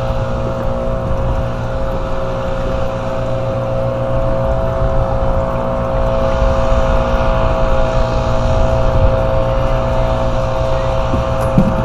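A small boat's motor running at a steady speed, a constant drone with a steady whine on top.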